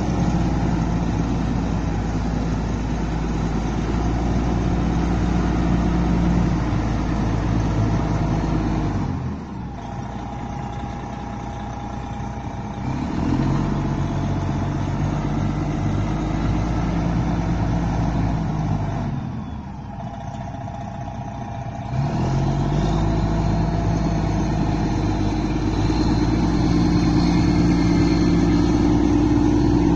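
Agrico 4+400 articulated four-wheel-drive tractor's diesel engine running steadily as it pulls a tined cultivator through the soil. Twice the engine note falls and the sound drops away for a few seconds, then the pitch rises and it comes back to full strength.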